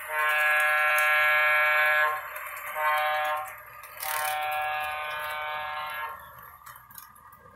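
A model GG-1 electric locomotive's onboard sound system blowing its horn through a small speaker: a long blast, a short blast and a long blast, the close of a grade-crossing signal. After the last blast only faint running noise is left.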